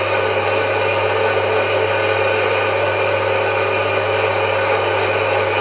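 Metal-cutting bandsaw running steadily, its blade sawing through a metal bar clamped in the vise, with a constant motor hum.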